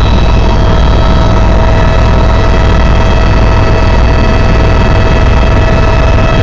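Helicopter in flight, heard loud from inside the cabin: the turbine engine's steady whine over a rapid, low beat from the rotors.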